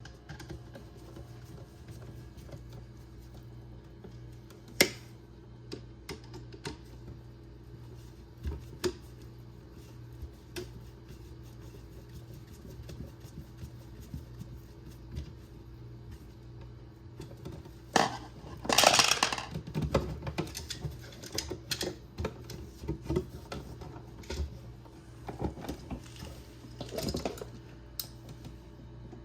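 Scattered clicks and light taps of needle-nose pliers and copper wire against a receptacle's screw terminals as a wire is bent and hooked on, with a louder scraping rustle about two-thirds of the way through. A steady low hum runs underneath.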